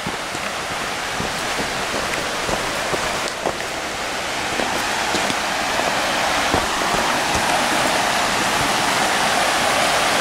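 Rapids of the Linville River rushing: a steady wash of moving water that grows gradually louder as the walker nears the bank, with a few faint footsteps on the dirt trail.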